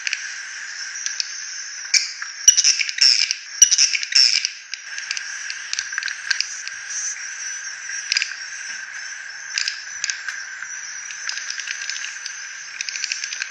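Swiftlet lure call recording: a dense chorus of swiftlet twittering and chirping, rough-sounding, with a louder flurry of chirps from about 2 to 5 seconds in.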